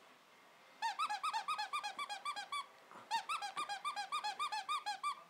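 Pembroke Welsh Corgi puppy whining in fast, high-pitched squeals, about eight a second, in two runs with a short break about three seconds in: the puppy begging for a toy it cannot reach.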